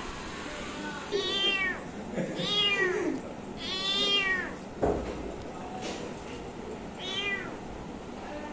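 Young ginger kitten meowing four times, each call high and arching up then down in pitch, with one short knock between the third and fourth calls.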